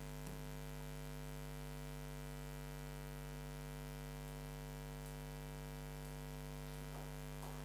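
Steady electrical mains hum with a stack of even, unchanging tones, and little else.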